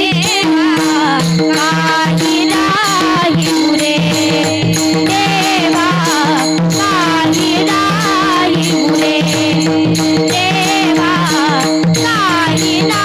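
Marathi Varkari kirtan music: a woman sings an ornamented, wavering devotional melody over a steady held drone, with pakhawaj drum and hand cymbals keeping a regular beat.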